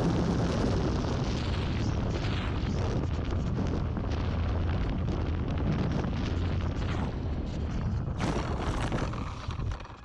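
Wind rushing over a camera mounted under an electric model airplane, with the motor and propeller running steadily as it comes in low to land. About eight seconds in, a rattling rumble of the wheels rolling through grass, then the noise drops away as the plane slows and stops.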